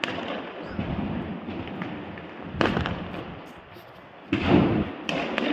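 Fireworks exploding: four booms about a second or two apart, each trailing off in a low rumble, the loudest about four and a half seconds in.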